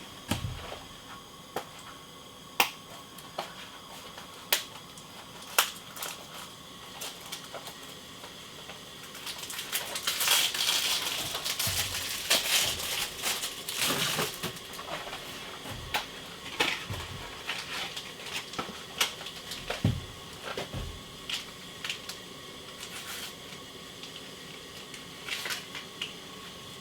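Scattered sharp clicks and knocks from hand work in a small room. About ten seconds in there are several seconds of denser scraping and rustling. A faint steady hum runs underneath.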